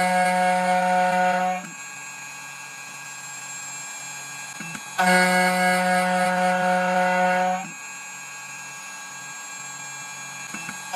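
CNC key-cutting machine running a V-groove cutter into a brass key blank. It gives a steady motor whine that comes on loud for about two and a half seconds, drops to a lower hum, comes back loud from about five seconds to nearly eight, and starts again right at the end.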